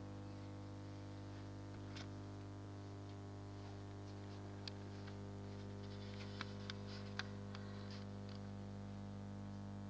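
Steady electrical hum, a stack of even low tones, the recording noise of a cheap toy camcorder, with a few light clicks, one about two seconds in and a cluster a little past the middle.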